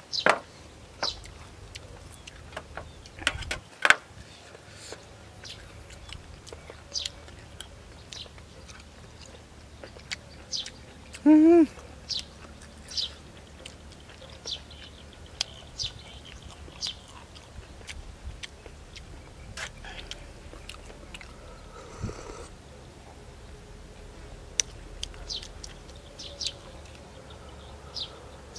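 Close-up mouth sounds of a man eating boiled chicken by hand: chewing and many short sharp smacks and clicks scattered throughout. A brief, loud voiced sound with a wavering pitch stands out about eleven seconds in.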